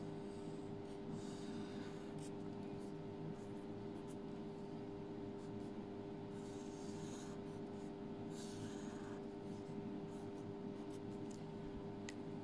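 Blue felt-tip marker drawn across paper in a few short, soft scratchy strokes, over a steady low background hum.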